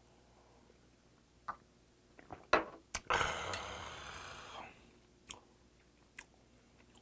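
A man's long, breathy exhale after a shot of soju, starting just after a sharp click about three seconds in and fading over a second and a half. Faint clicks come before it and a couple after it.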